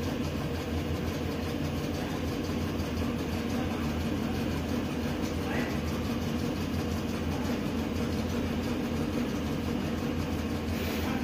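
Chevrolet Tahoe V8 idling steadily with a misfire, which the scan tool counts mostly on cylinders 1, 4 and 3.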